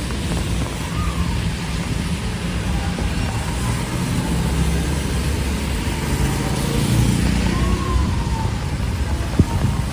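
Road traffic on a wet street in a typhoon's rain and wind: a steady hiss over heavy low rumble, with faint short squeals and one sharp click near the end.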